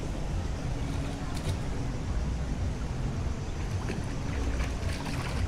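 Shallow pool water sloshing and splashing around wading legs and a pushed swim ring, under a steady low wind rumble on the microphone.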